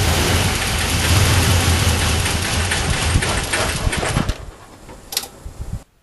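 Car engine being cranked with gasoline fed in through the brake booster vacuum hose: it catches right away, runs for about four seconds with a steady low hum, then dies out. An engine that starts and runs briefly on fuel fed this way points to a fuel delivery problem, with spark present.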